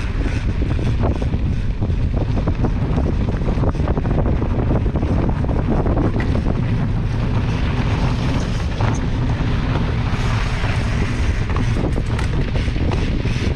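Wind buffeting the microphone: a loud, steady low rumble with faint scattered knocks.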